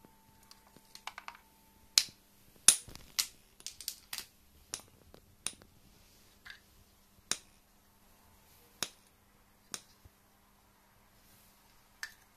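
A dozen or so sharp, irregular plastic clicks and taps as a 9V battery, cable plugs and a battery-box cover are handled and set down on a hard stone floor.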